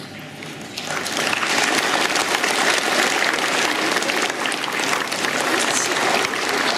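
Audience applauding, starting about a second in and running on steadily.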